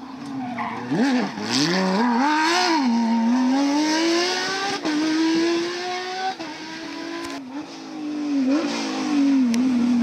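Porsche 997 GT3 rally car's flat-six engine revving hard as the car accelerates past and away, pitch climbing through each gear and dropping at the shifts.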